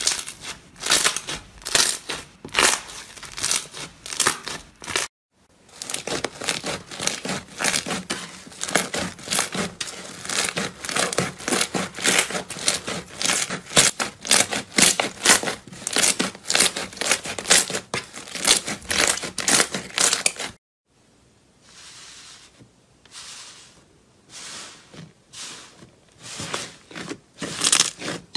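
Slime being poked, pressed and squeezed by hand, giving dense crackling and popping clicks. The sound breaks off twice, and in the last part it turns to quieter, separate squishes about once a second.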